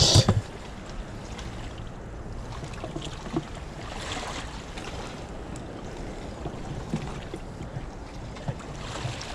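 Wind on the microphone and small waves washing against a rocky shoreline, a steady even noise, with a few faint short knocks of handling.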